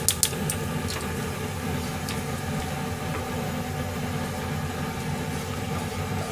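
Steady low mechanical hum, with a few light metal clinks of cookware right at the start and once more about two seconds in.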